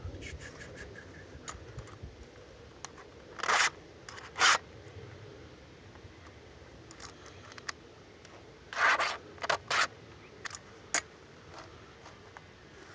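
A hand file rasping across the cutters of a Stihl MS 290 chainsaw chain being sharpened: about five short strokes, two about a third of the way in and three in quick succession past the middle, with faint ticks between.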